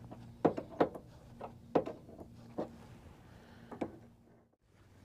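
About five sharp knocks and clicks, irregularly spaced, from hand adjustment work on a sawmill's metal parts, with a faint steady hum underneath.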